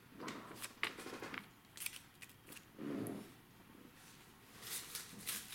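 Paper slips being handled and laid on a table: soft scattered crinkles and light taps of paper, with a slightly fuller rustle about three seconds in.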